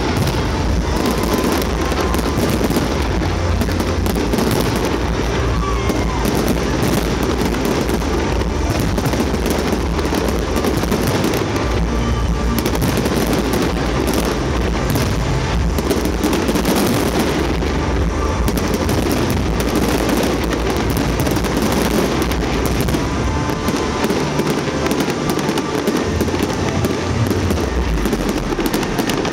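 A fireworks display going off without a pause: a dense, unbroken mass of bursts.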